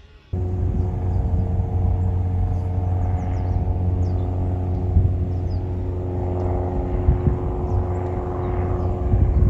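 A steady mechanical hum made of several constant tones over a low rumble. It starts abruptly just after the beginning and holds level throughout.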